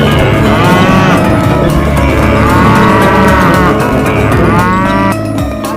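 Three drawn-out animal calls, each rising then falling in pitch, over a dense low rumble. The calls stop about five seconds in and the sound changes.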